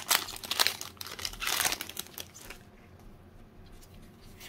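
Foil wrapper of a Pokémon TCG booster pack crinkling and tearing as it is ripped open and pulled apart by hand, in quick crackly bursts that stop about two and a half seconds in.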